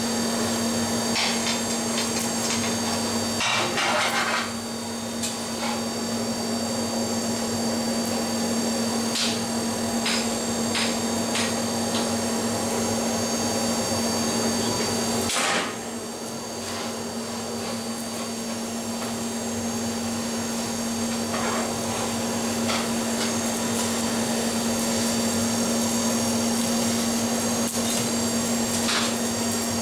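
Steady hum of a forge blower, with scattered hammer blows on hot steel at irregular intervals, a dozen or so.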